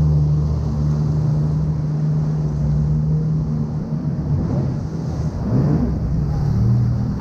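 Yamaha jet ski's engine running as it passes close by, a steady drone for the first few seconds, then wavering and shifting in pitch in the second half.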